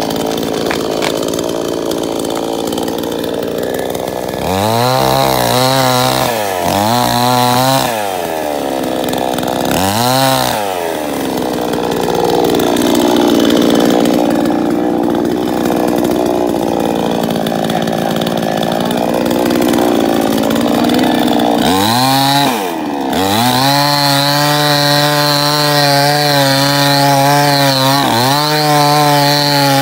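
Salem Master gas chainsaw, a two-stroke engine, revving up and down in several short bursts. It then runs lower and rougher for several seconds, and from about two-thirds of the way through holds steady high revs as it cuts into a tree trunk.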